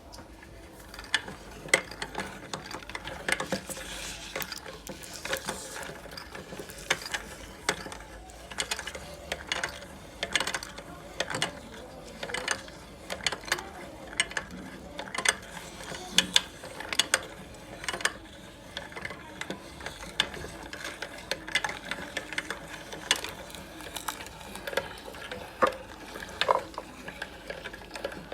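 Meat grinder crushing hot chillies: irregular crunching clicks and snaps over a steady grinding rasp.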